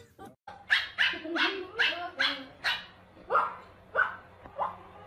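Small puppy yapping: a quick run of short, high barks, about two a second, beginning about half a second in.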